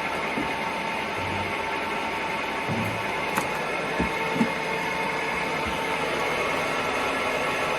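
Centre lathe running steadily: a continuous mechanical hum with a steady whine, and three short knocks a little before halfway through.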